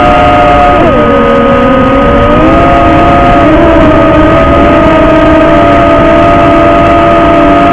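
Drone's electric motors and propellers whining loudly, heard from close by on the drone's own camera, with steady wind rush. The pitch dips about a second in and rises again a little later as the motor speed changes.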